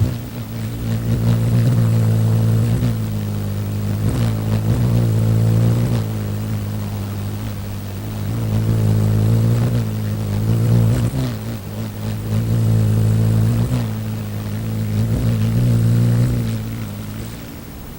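Hummingbird wings humming while hovering, a steady low buzz that swells and fades every few seconds as the birds come close and move off.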